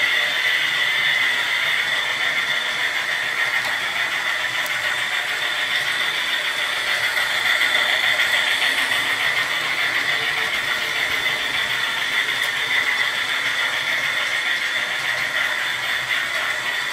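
Hot Bee battery-powered toy steam train running on its plastic track: a steady, high-pitched whirr from its small electric motor and gearing.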